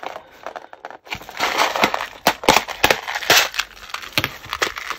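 Snap-on lid of a clear plastic storage box being pried off: a run of sharp plastic clicks and crackles, starting about a second in.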